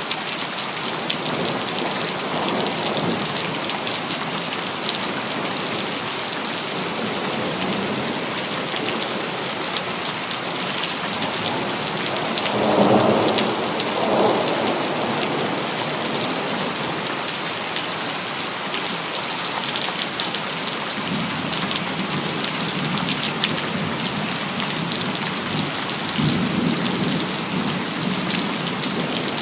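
Steady rain falling in a city, with a roll of thunder swelling up about halfway through and a lower rumble of thunder near the end.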